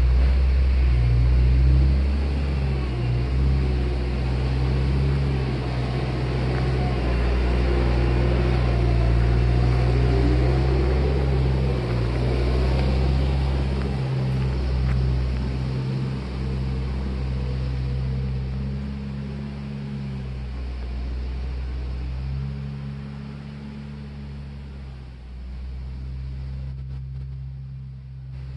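A vehicle's engine running at low speed with a steady low hum, growing quieter over the last several seconds.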